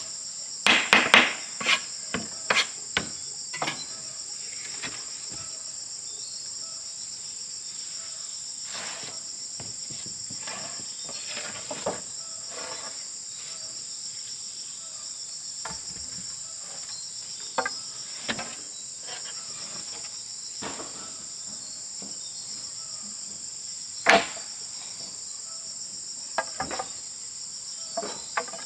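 Irregular hammer blows over a steady high-pitched insect chorus: a quick run of knocks in the first few seconds, then single knocks every few seconds.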